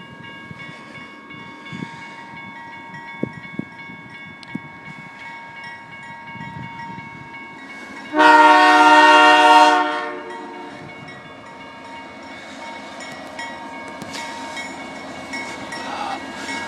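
Railroad crossing bell ringing steadily as a freight train approaches. About eight seconds in, the lead locomotive, a Canadian National Dash 9-44CWL, sounds one loud horn blast lasting about a second and a half. The train's rumble and wheel clatter build toward the end.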